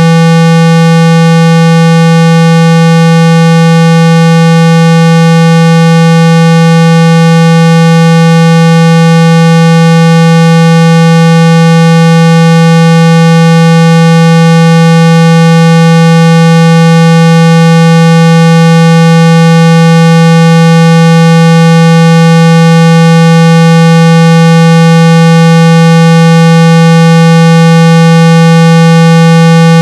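Loud, steady synthesized 165 Hz test tone, unbroken and unchanging, of the kind played at full volume to shake dust and water out of a phone speaker.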